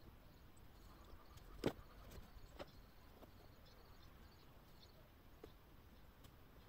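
Near silence: faint outdoor background with a few soft clicks, one sharper click about a second and a half in.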